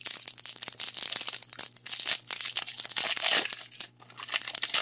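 Foil Pokémon booster pack wrapper being torn open and crinkled by hand: a run of crackling rustles, with a short pause a little before the end.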